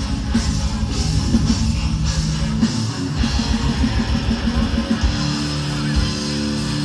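Metal band playing live: distorted electric guitars and bass over a drum kit in a fast repeated riff. About three seconds in the drumming thins out, and the guitars move on to held, ringing notes.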